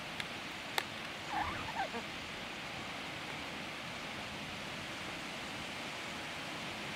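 Steady hiss of rain during a night thunderstorm. Two sharp clicks come in the first second, and a brief warbling, gobbling call follows about a second and a half in.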